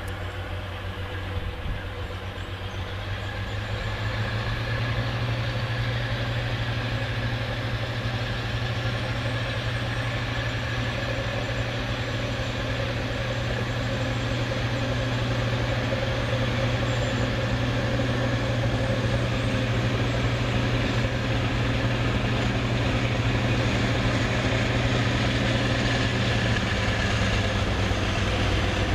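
Class 42 Warship diesel-hydraulic locomotive with its twin Maybach V12 engines under power, hauling a passenger train away from a station and approaching. It makes a steady, deep engine drone that grows louder about four seconds in.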